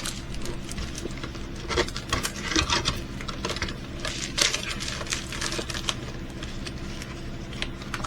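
Hands handling diamond-painting kit items: irregular rustling and light clicking of plastic packaging and small parts, over a steady low hum.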